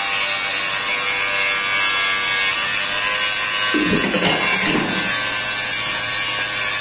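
Handheld electric angle grinder grinding along a steel I-beam, a steady high-pitched whine.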